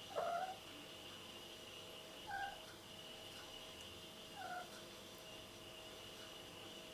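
Domestic tabby-and-white cat giving three short, soft calls about two seconds apart, the first the loudest and rising in pitch at its start. A faint steady high tone runs underneath.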